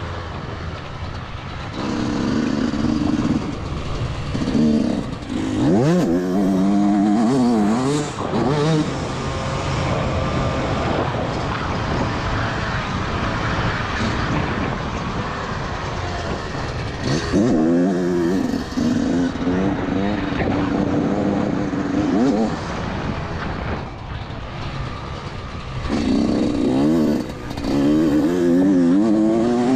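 Yamaha YZ125 two-stroke single-cylinder engine at full riding load, revving up sharply several times and dropping back between, as the bike accelerates out of corners and eases off, under a steady rush of noise.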